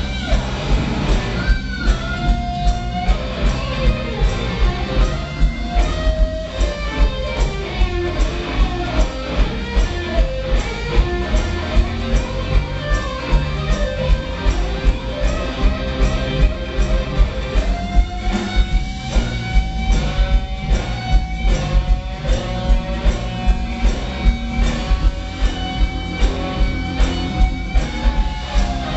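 Live blues-rock band: a Stratocaster-style electric guitar soloing with sustained, bent notes over a steady drum beat of about two strikes a second.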